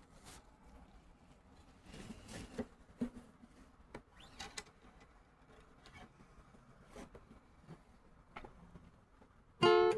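Scattered small clicks and handling noises, then strumming on a guitar begins near the end, one chord strummed several times.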